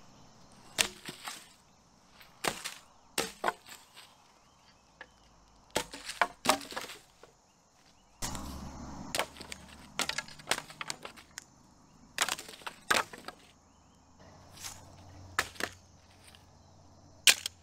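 Dry branches and sticks of firewood dropped and tossed onto a pile on the ground: irregular wooden knocks, clatters and cracks with short pauses between them, the sharpest near the end.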